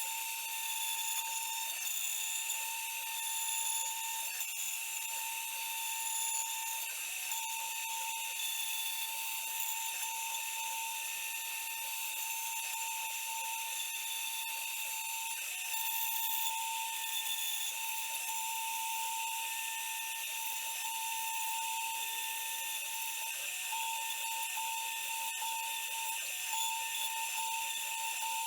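CNC router spindle running a cutting job, a steady high-pitched whine with a tone that wavers slightly as the machine moves.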